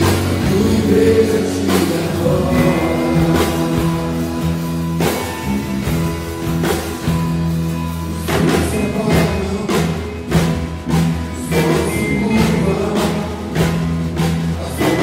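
Live worship band playing a praise song: acoustic guitar, electric bass and drum kit, with voices singing along.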